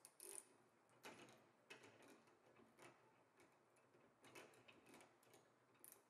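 Faint, irregular metallic clicks of a ratchet turning the screw of a C-frame U-joint press. The clicks come singly or in pairs, roughly one every half second.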